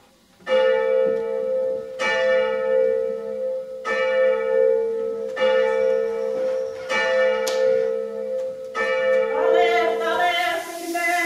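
A church bell tolling slowly, six strokes about a second and a half apart, each ringing on into the next. Near the end, voices begin singing unaccompanied.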